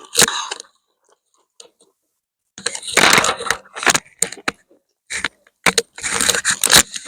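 Eating sounds at the table: irregular bursts of crunching and clinking, each lasting a second or two.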